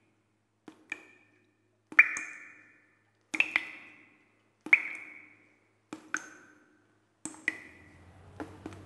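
A sharp ringing ping, struck twice in quick succession, repeats about every second and a quarter, six times, each ring fading over about a second. A low hum comes in near the end.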